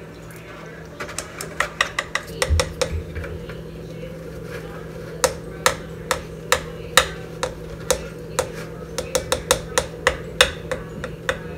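Red plastic measuring cup tapped again and again on the rim of a stainless steel mixing bowl to shake the last milk out: a long string of sharp, irregular clicks, bunched together at first and then spaced out.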